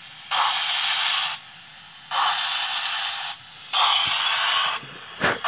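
Sound decoder of a Dapol Gresley A4 model steam locomotive playing slow, hissing steam exhaust beats through its small speaker as the engine starts away: long hisses about a second each, roughly one every 1.7 seconds. A sharp click sounds just before the end.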